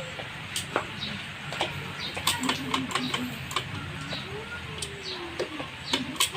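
Scattered sharp metal clicks and clinks from hand tools and engine parts being handled, over a steady low hum.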